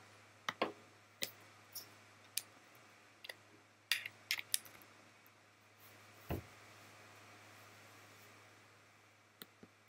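Light plastic clicks and rattles of a USB cable being handled and plugged in: about a dozen sharp ticks over the first five seconds, then a single duller thump about six seconds in. A faint steady hum sits underneath.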